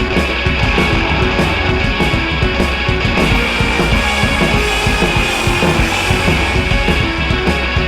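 Background rock music with drums and distorted guitar at a steady beat.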